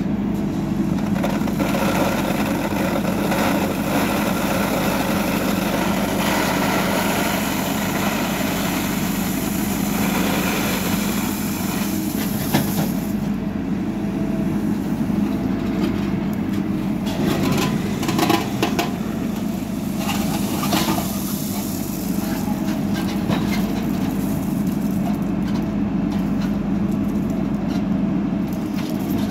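JCB backhoe loader's diesel engine running steadily as the backhoe arm digs and dumps in a gravel trench. Through the middle stretch come a series of clanks and scrapes of the steel bucket on gravel and stone.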